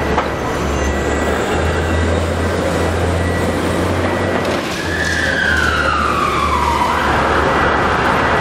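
City street traffic: a steady low rumble of passing buses and cars under a wash of noise, with a whining tone that slides down in pitch for about two seconds past the middle.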